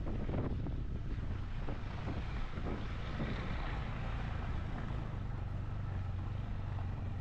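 KTM Duke 390's single-cylinder engine running steadily while riding, with wind buffeting the microphone.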